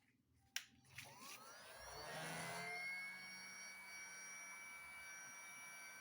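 Heat gun switched on with a click. Its fan motor whine rises over about two seconds and then runs steadily with a rush of blown air.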